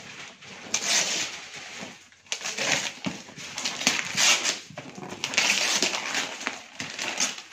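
Gift wrapping paper being torn and crinkled off a cardboard box, in several rough rips each about a second long.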